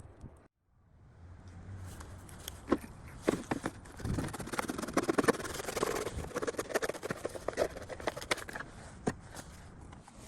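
Fresh motor oil being poured from a bottle into the engine's oil filler opening: a gurgling pour with scattered clicks and knocks from the bottle being handled. It starts about half a second in and is heaviest in the middle.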